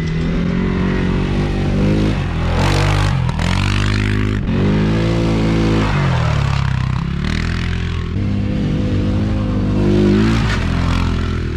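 CFMOTO CForce ATV engines revving up and easing off as the quads ride past, rising in pitch three times, about two, five and nine seconds in, each followed by a drop, with tyre and wind hiss between.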